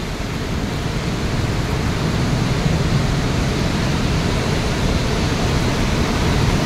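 Steady rushing of a fast, swollen, muddy mountain stream in flood, tumbling over rocks close by.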